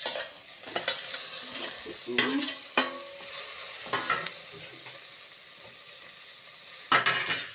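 Pieces of pork tipped from a steel bowl into a hot steel pot and stirred with a metal spoon: scrapes and clinks of the spoon on the pot over a steady frying sizzle, with the loudest scraping near the end.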